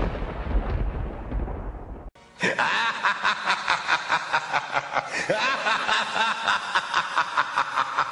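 A thunder-like rumble that fades out over the first two seconds, then intro music with a fast, even pulse of about four beats a second.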